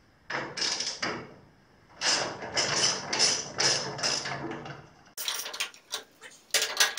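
Bolts being worked loose from the front stop switch of a Robland X-31 combination machine with a hand tool. About six quick, even strokes come at roughly three a second, followed by a few sharp metallic clicks near the end.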